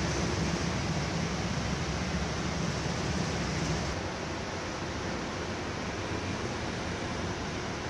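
Steady rush of heavy cyclone rain and wind, with a low hum underneath that drops out about four seconds in.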